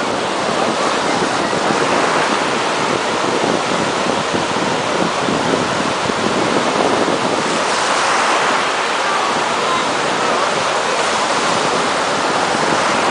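Water rushing and splashing past a towed banana boat, with wind buffeting the microphone: a loud, steady rush.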